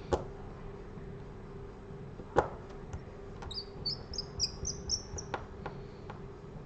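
A few sharp clicks and taps of small parts and tools handled on the repair bench, with a quick run of about eight short high-pitched chirps in the middle, over a steady low hum.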